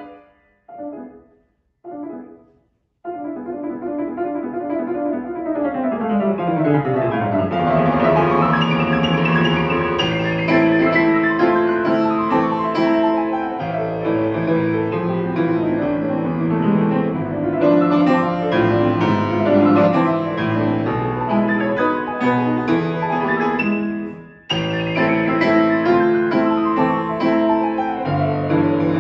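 Fazioli grand piano played solo. The music breaks off at the start, and two short separate chords follow in the silence. Then the playing picks up again with fast falling runs and full chords that grow louder, and stops briefly about five seconds before the end before going on.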